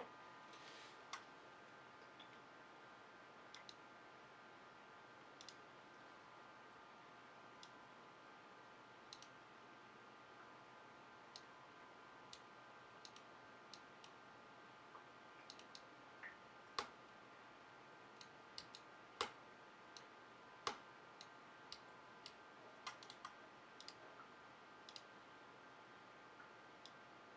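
Logitech G703 gaming mouse button clicking, single clicks at irregular spacing, a few of them much louder in the second half. This is most likely the left button, which has a click fault. A faint steady high whine runs underneath.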